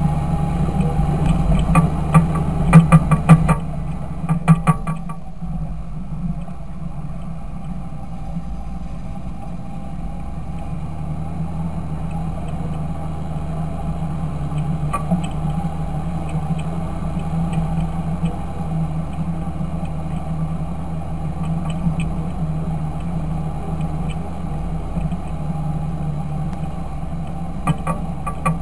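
Fendt 926 Favorite tractor engine running steadily. Bursts of quick sharp clicks or rattles come between about two and five seconds in and again near the end.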